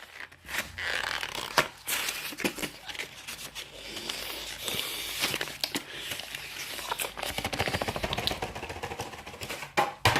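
A keyboard's retail box and packaging being handled and opened by hand: rustling, scraping and light knocks, with a quick rasping run about seven to eight seconds in.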